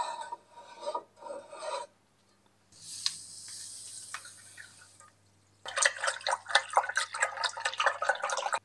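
A few short scraping strokes, then white powder poured into a glass bowl of water with a steady hiss for about two seconds. From about halfway in, the mixture is stirred quickly with a stick that scrapes and clatters against the glass.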